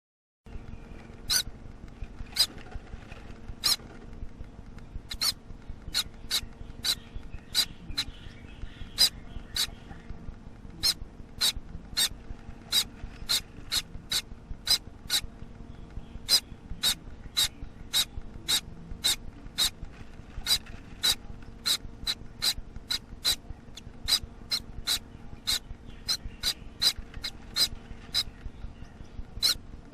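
Gouldian finch chick about a week old, begging for food from its parents with short, sharp, high-pitched calls repeated about twice a second, over a steady low hum.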